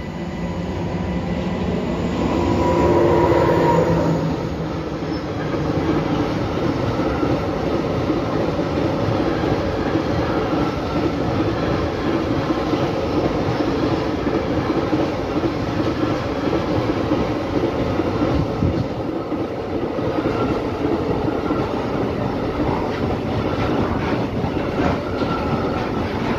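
Long container freight train rolling through a level crossing. It is loudest about three seconds in, then settles into a steady rumble and clatter of wagon wheels on the rails.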